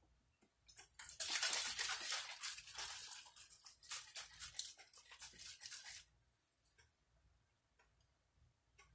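Thin plastic wrapping crinkling and crackling as it is handled, with many quick crackles. It starts about a second in and stops at about six seconds.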